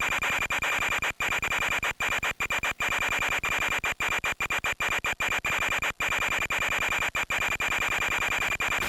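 Harsh radio static from an FPV video link's audio channel: a dense hiss with a steady high whine, broken by many brief dropouts.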